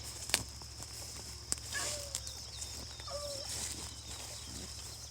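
A hound barking in the distance on a track, two short bent calls about two and three seconds in, with faint bird chirps and a couple of sharp clicks.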